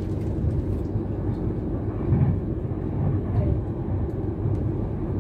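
Class 390 Pendolino electric train running along the line, heard from inside a standard-class coach as a steady low rumble, swelling briefly about two seconds in.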